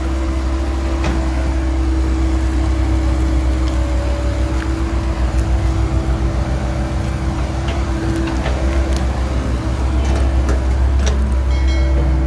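Hydraulic pump of a radio-controlled excavator running steadily, a constant hum with a steady whine, its loudness pulsing as the boom and bucket work; a few small clicks and scrapes as the bucket digs and drops loose soil.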